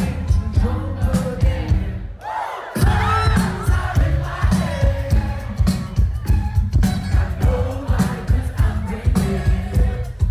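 Live band playing at a gig, picked up from the crowd: a heavy, beat-driven bass and drum groove with a singer on top. The low end drops out briefly about two seconds in, then the full beat comes back with the vocal.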